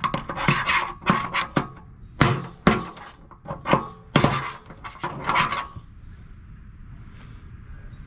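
Hammer blows on the John Deere L120 mower deck's spindle, about ten irregular strikes, some with a brief metallic ring, knocking the spindle loose to drive it out for new bearings. The blows stop about two-thirds of the way through.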